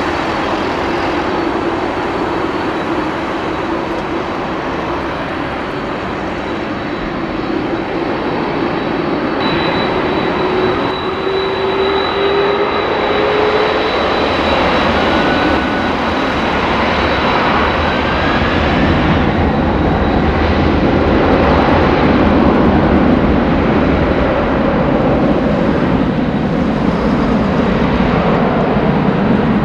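Jet engines of an ANA Boeing 787-10 taxiing: a steady jet engine noise with a low whine that slowly rises in pitch over the first half, growing louder in the second half.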